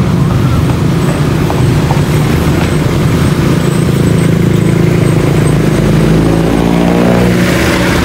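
Motor vehicle engine running close by with the hum of road traffic. Near the end its pitch rises as the vehicle speeds up and passes.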